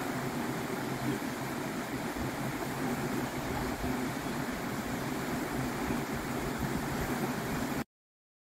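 Steady outdoor ambience from a nature field recording: an even rushing noise with no distinct events, which cuts off abruptly to silence near the end.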